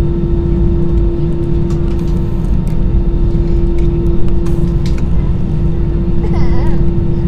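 Steady low rumble of engines and air handling heard inside an Airbus A320 cabin on the ground, with a constant droning hum over it.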